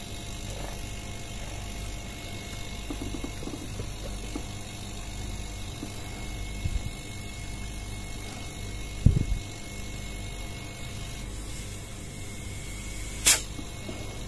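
Small hermetic refrigeration compressor and axial condenser fan running steadily with a low hum, just switched on by the controller after its start delay. A low thump comes about nine seconds in, and a short sharp click near the end.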